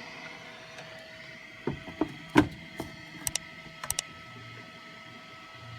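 Hitachi cordless-tool battery charger's cooling fan running with a faint steady hum and whine, the sign that the battery is charging. A scattered series of sharp clicks and knocks sounds about two seconds in, the loudest near the middle.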